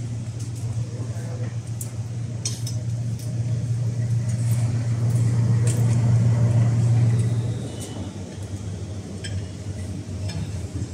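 Airport lounge ambience: distant voices and scattered clinks of dishes and glassware over a steady low hum that swells in the middle and drops back about eight seconds in.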